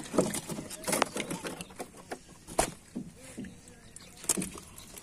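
Freshly caught catfish being handled in a wooden boat: a few irregular wet slaps and knocks against the planks and the sack.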